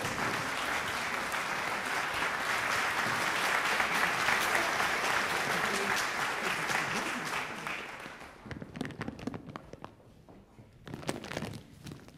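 Concert-hall audience applauding, a dense steady clapping that dies away about eight seconds in.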